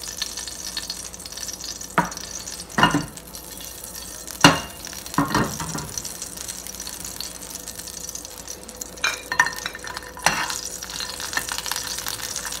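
Cumin seeds sizzling in hot oil in a small steel pan, the tempering (tadka) for a dal, a steady hiss broken by a handful of sharp clicks and knocks.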